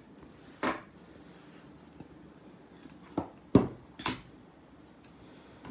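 Folded cardboard game board being opened out on a wooden table: four short taps and flaps as its panels turn over and come down, one early and three close together a little after three seconds in.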